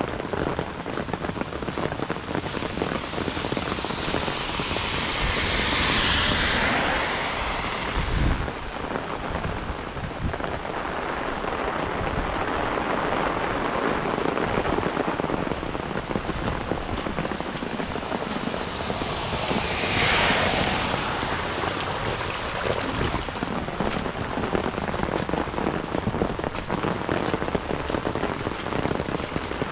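Heavy rain pouring down steadily, swelling louder twice, about five seconds in and again about twenty seconds in.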